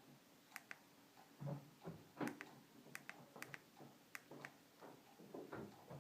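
Faint, irregular sharp clicks, some in quick pairs, mixed with soft low taps, over near silence.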